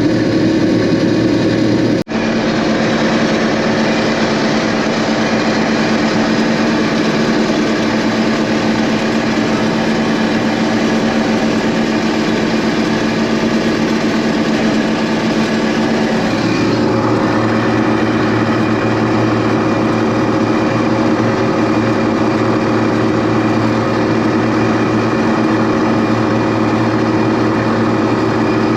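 Farm machine engine running steadily under load. The sound breaks off for an instant about two seconds in, and its tone shifts around sixteen seconds in.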